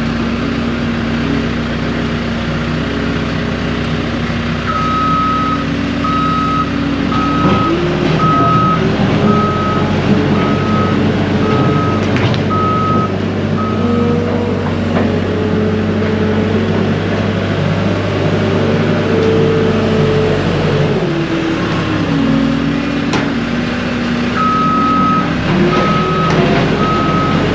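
Skid steer engine running and revving up and down as it works gravel, with its backup alarm beeping steadily during two stretches of reversing, through the middle of the stretch and again near the end.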